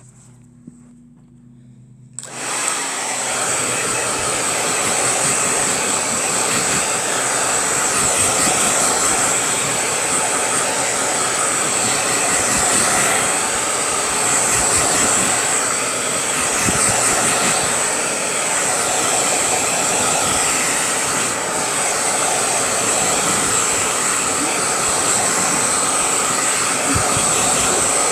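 A hair dryer switches on about two seconds in and then blows steadily, a loud rush of air with a thin high-pitched tone running through it.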